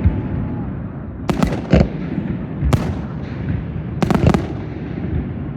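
Aerial fireworks shells bursting in a large display: loud bangs, one pair about a second and a half in, one near three seconds and another pair around four seconds, over a continuous low rumble of echoing reports.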